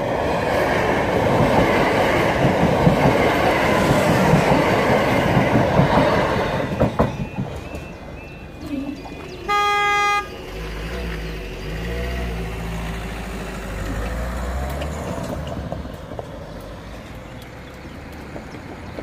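Southern Class 377 electric multiple unit passing over a level crossing, loud for about seven seconds and then fading away. About nine and a half seconds in, a single short horn blast sounds. After that a car engine runs low as road traffic crosses once the half barriers have lifted.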